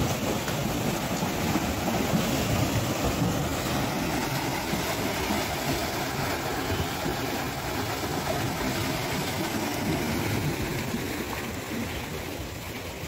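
Water splashing and churning as a herd of water buffalo wade through a pool, a steady rushing noise that eases slightly near the end.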